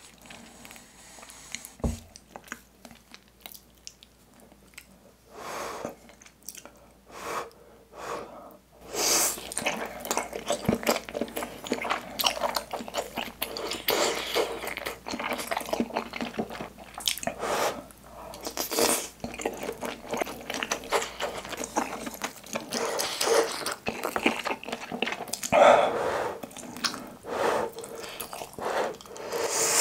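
Close-miked chewing and biting of soft skewered Korean fish cake (eomuk), with wet mouth sounds. It is sparse and quiet for the first several seconds, then the chewing runs on steadily from about nine seconds in. Near the end, broth is sipped from a wooden ladle.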